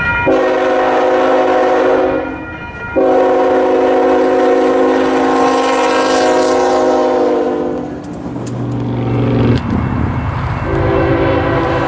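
Nathan Airchime K5HL five-chime locomotive horn sounding a short blast, then a long blast of several seconds whose pitch sags slightly at its end. The train rumbles with rail clicks, and the horn sounds again near the end.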